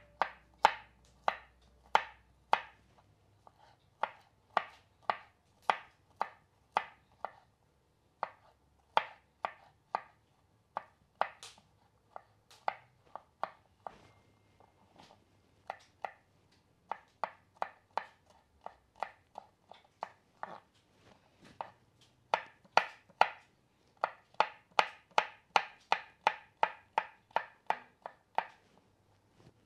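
Kitchen knife chopping garlic on a wooden cutting board: a run of sharp knocks, about two a second, with a couple of short pauses, coming faster near the end.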